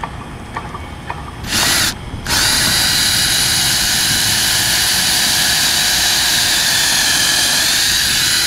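Ryobi cordless drill with a 7/16-inch bit boring a lead hole through asphalt shingles into the roof. It gives a brief burst, then runs steadily for about six seconds and cuts off sharply near the end.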